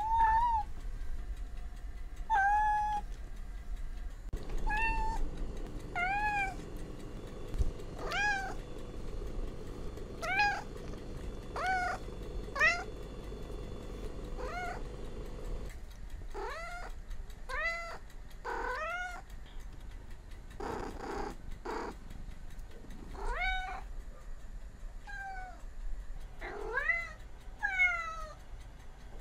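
Domestic cat meowing over and over: short high calls, each rising and then falling in pitch, about one every second or two. A couple of brief noisy bursts come about three-quarters of the way through.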